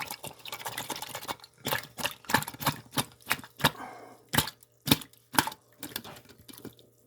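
A run of sharp, irregular clicks and knocks from kitchen utensils, about two or three a second, with the loudest strikes a little past the middle.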